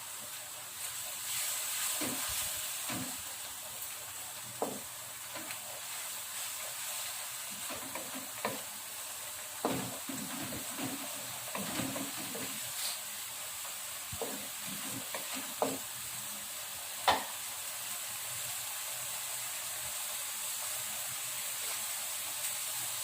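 Spice paste sizzling in hot oil in a pan with a steady hiss, while a spatula stirs it and knocks against the pan now and then; the sharpest knock comes about three quarters of the way through.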